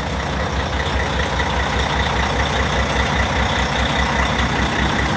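Diesel semi-truck engine idling with a steady low throb.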